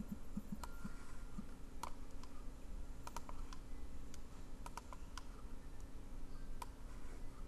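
Scattered sharp clicks of a computer mouse, about a dozen, some in quick pairs, over a faint steady hum.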